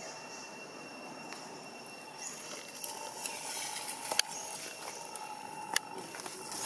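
Quiet outdoor background with a steady high-pitched hum and a few sharp clicks, the clearest about four and six seconds in.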